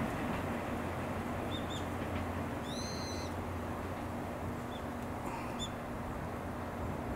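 Distant rumble of a 14 series passenger train hauled by an EF65 electric locomotive, easing off as it pulls away. Birds call over it: a few short high chirps and one longer call about three seconds in.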